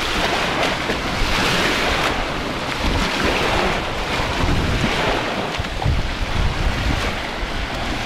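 Baltic Sea surf washing in on the shore, swelling and easing every few seconds, with wind rumbling on the microphone.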